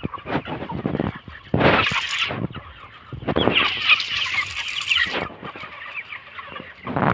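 A large flock of broiler chickens clucking and peeping in a dense, irregular chorus. There is a louder noisy burst about two seconds in and a louder stretch of calling a little later.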